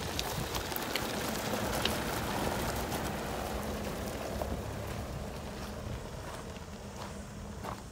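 Toyota Hilux pickup driving slowly over loose river gravel, its tyres crunching and popping stones under the engine's low rumble. It is loudest as it passes close by and then fades as it pulls away.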